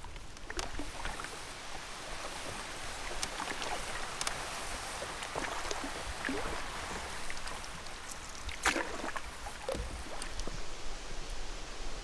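Water lapping and splashing lightly against a canoe. A steady wash of water sound carries scattered small clicks and splashes, the loudest about nine seconds in.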